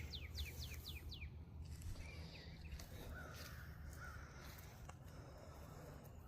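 Birds calling outdoors: a quick run of thin, falling chirps, about five a second, fades out a second or so in, followed by a few scattered fainter calls over a steady low rumble.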